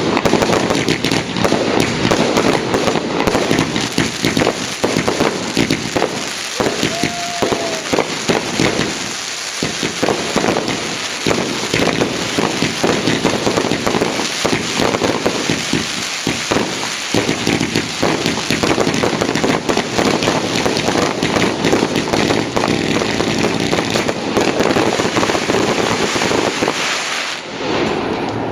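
Fireworks and firecrackers going off in a dense, continuous barrage: rapid crackling mixed with bangs, with no let-up.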